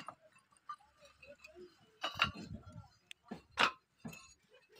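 Fired clay bricks clinking and knocking against one another as they are lifted off a stack and set onto wheelbarrows: a sharp knock at the start, then louder clusters about two and three and a half seconds in.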